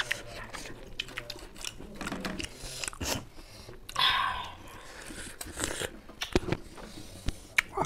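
Mouth sounds of people biting into and chewing raw lemon slices: scattered sharp wet clicks and crunches, with a short hiss about four seconds in.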